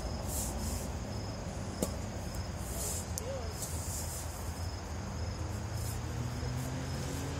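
Insects chirping in a steady, evenly pulsing high pattern over a low rumble, with a single sharp click a little under two seconds in.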